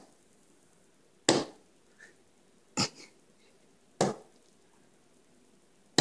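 Four loud, sharp cracks made by hand, about one to one and a half seconds apart, each dying away quickly, with a couple of faint ticks in between: startle noises made at a kitten.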